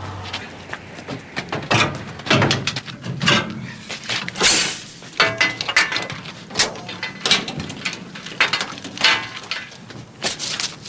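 Irregular knocks, scuffs and clatters of a man clambering over a truck's chassis and coupling, his footfalls and grips landing on metal.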